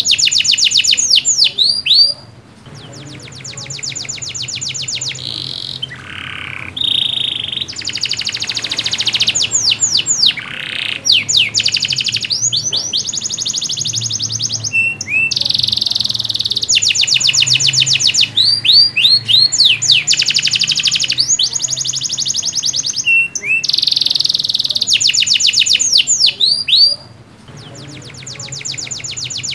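Domestic canary in full song: long runs of fast trills of rapidly repeated notes alternating with sweeping whistled notes, with short pauses between phrases about two seconds in and near the end.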